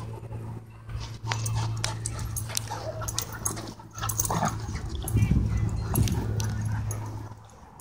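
Two dogs, a husky and a German Shorthaired Pointer, play-fighting: brief whimpers and yips amid scuffling, over a steady low hum.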